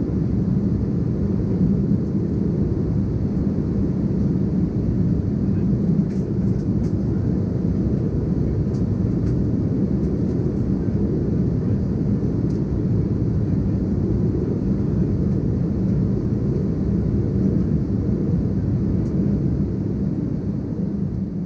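Steady cabin roar inside an Embraer E190 airliner in flight, the engine and airflow noise of its CF34 turbofans heard from a seat beside the wing, strongest in the low range and unchanging.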